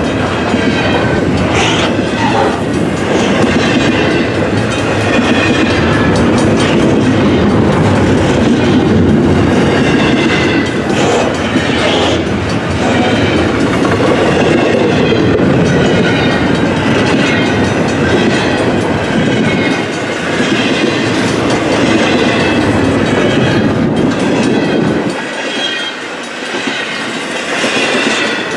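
CN double-stack intermodal freight train passing close by, its wheels clacking over the rail joints under a steady loud rumble. Near the end the deep rumble drops away.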